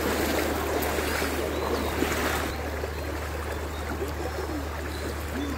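Rain-swollen, muddy floodwater rushing along a stream: a steady churning rush of water.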